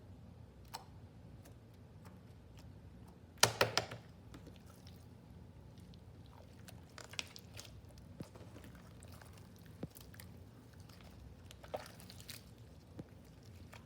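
Jiggly slime being handled and squished, giving scattered small sticky clicks and pops, with a quick run of several louder clicks about three and a half seconds in, over a low steady hum.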